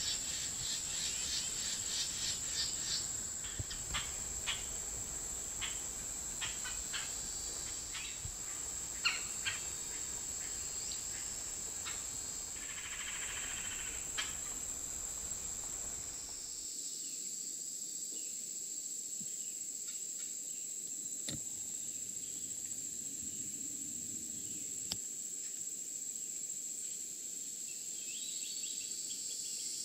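Steady high-pitched insect trilling, with short chirps and ticks in the first half.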